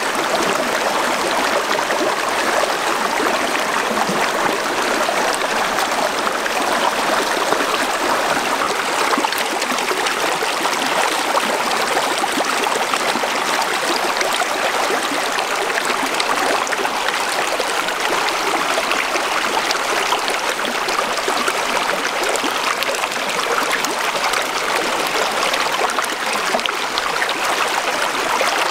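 Shallow rocky stream running steadily over stones in small cascades, an even splashing flow of water.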